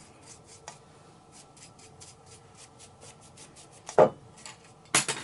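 A paintbrush stroking and dabbing thick, gritty baking-soda paint onto a ceramic bird figurine: quick, rhythmic scratchy strokes several times a second. Two louder knocks come near the end.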